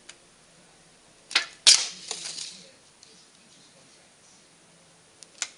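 A small hand tool knocking against an aluminium soda can: two sharp clicks about a second and a half in, the second the loudest and followed by a short rattle, then two fainter clicks near the end.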